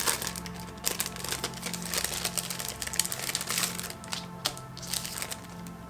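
Background music playing while packaging crinkles and rustles as it is handled, the crinkling dying down near the end.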